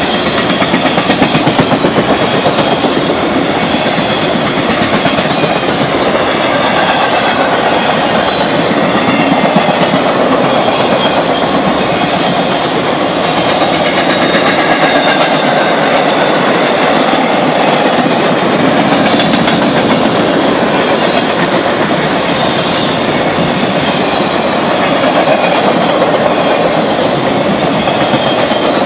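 Freight train of empty TTX flatcars rolling past close by: a loud, steady noise of steel wheels on the rails, with clickety-clack over the rail joints.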